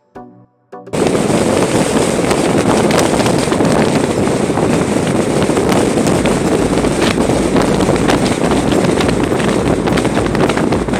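Wind rushing and buffeting against the microphone of a moving car, with road noise underneath, coming in suddenly about a second in and running loud and steady.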